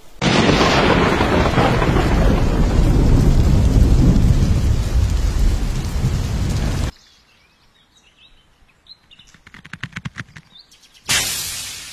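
Thunder rumbling over heavy rain for about seven seconds, which cuts off abruptly. Then birds chirp with a quick run of clicks, and near the end a sudden burst of noise fades away.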